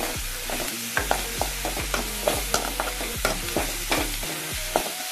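Chopped onions and ginger-garlic paste sizzling in hot oil in a metal kadai, with a slotted metal spoon scraping and clinking against the pan a few times a second as they are stirred. The paste is being sautéed until its raw smell is gone.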